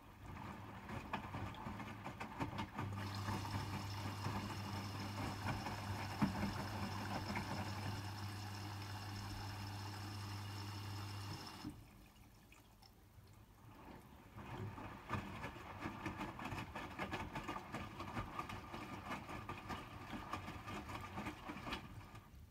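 Hotpoint WMFUG 942 washing machine taking in water for a rinse, water rushing into the drum. A steady low electrical hum runs alongside from about three seconds in and stops suddenly a little before halfway. After a short lull the water noise returns, splashing without the hum.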